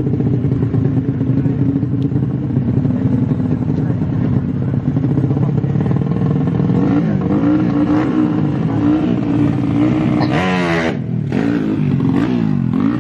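Tuned small four-stroke underbone motorcycles running loudly, their revs wavering and then sweeping sharply up and down about ten seconds in, with more rising and falling revs near the end.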